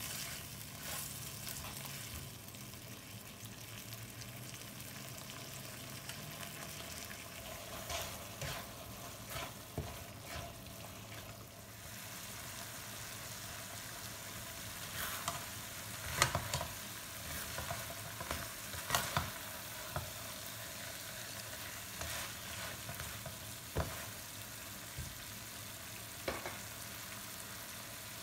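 Tomato-chilli sauce sizzling in a nonstick pan, stirred and scraped with a spatula, with scattered sharp knocks of the utensil against the pan.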